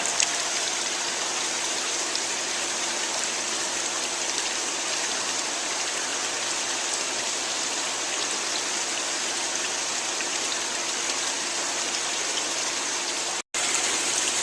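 Water rushing steadily from a swimming pool's return jet into the vacuum hose held over it, filling the hose to prime it. The sound breaks off for an instant near the end.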